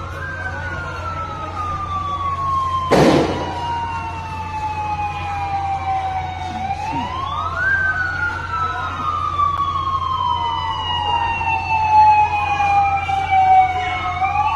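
Several emergency vehicle sirens wailing at once, out of step with each other: each rises quickly, then falls slowly over several seconds. A single sharp bang about three seconds in, over a steady low hum.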